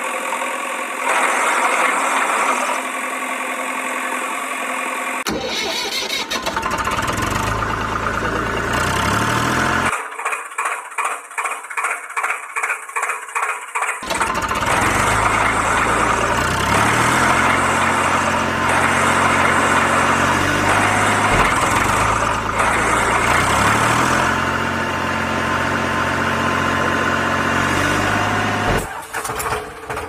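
Engine sound effects laid over the picture in several spliced clips that change abruptly about 5, 10 and 14 seconds in and again near the end. One clip is a chugging engine at about three pulses a second. Later the engine's pitch steps up in stages, twice over.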